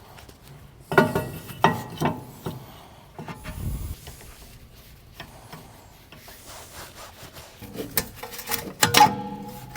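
Metal clanks and knocks with some ringing, and scraping in between, typical of wheel-hub and brake parts and tools being handled and fitted. There is a cluster of clanks about a second in and another near the end.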